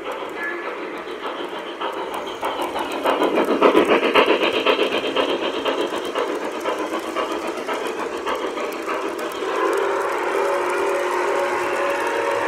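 Lionel O scale freight cars rolling past close by, their wheels clicking rapidly over the rail joints, loudest a few seconds in. From about ten seconds in, the steam locomotive's electronic whistle sounds and holds steady over the running noise.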